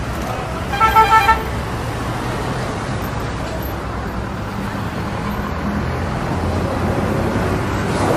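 A car horn gives three quick toots about a second in, over the steady noise of street traffic and passing cars.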